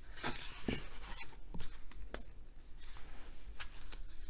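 Pages of a large hardcover art book being turned by hand: paper rustling, with several short crisp snaps and ticks.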